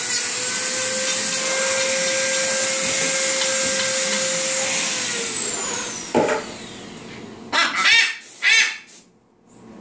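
A small high-speed electric motor, such as a rotary grinding tool, whirs at a steady pitch, then falls in pitch and spins down after it is switched off. Near the end a macaw gives a few short, harsh squawks.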